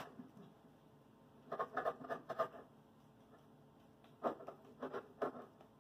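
Kitchen knife knocking on a plastic cutting board as raw chicken breast is cut into pieces, in two short clusters of knocks, about one and a half seconds in and again about four seconds in.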